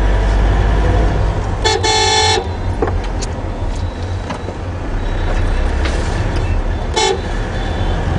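Car horn honked twice: a toot of under a second about two seconds in and a short beep near the end, over the steady low rumble of the car's engine and road noise heard from inside the cabin.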